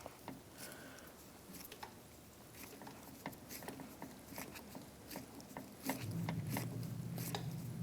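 T20 Torx screwdriver turning out a bolt in the edge of a car door: faint, irregular small clicks and scrapes of the bit working the screw. A low steady hum comes in about six seconds in.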